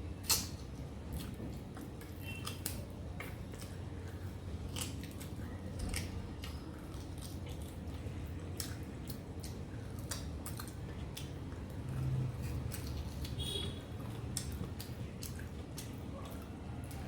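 A person chewing mouthfuls of mutton curry and rice, with irregular wet mouth clicks and smacks, over a steady low hum.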